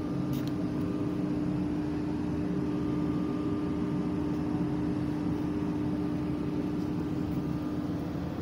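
A steady machine hum with a constant low tone that does not change.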